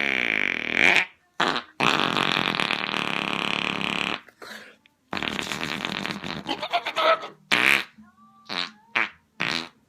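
Fake fart noises made with the hands, air squeezed out between cupped palms: a blast of about a second, two longer ones of around two seconds, then several short ones near the end.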